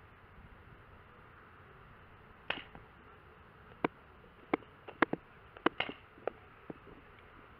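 Paintball marker firing about ten sharp shots in quick, uneven bursts, starting about two and a half seconds in.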